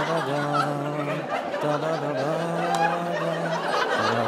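A man humming a slow tune in long held notes that step up and down, over audience laughter and chuckling.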